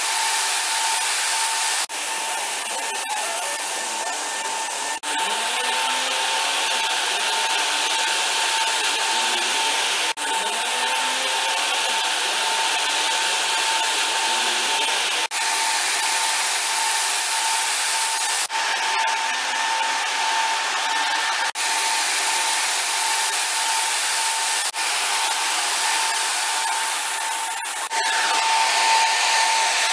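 Fans of a two-fan corn dryer running: a steady rush of air with a constant high whine.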